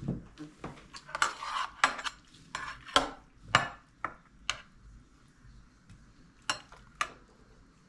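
Metal serving spoon and cutlery clinking and scraping against a metal baking tray and plates while dolma is served. A quick run of clinks comes in the first half, and two single clinks come near the end.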